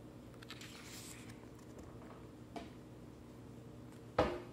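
Pages of a paperback book being leafed through by hand: faint paper rustling, then a louder, sudden page turn about four seconds in.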